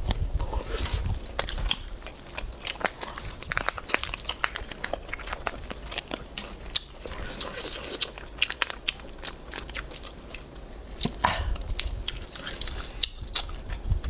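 Close-up chewing and biting of chewy barbecue-flavoured grilled gluten snack strips, a run of irregular wet clicks, with the crinkle of the plastic snack packet being handled.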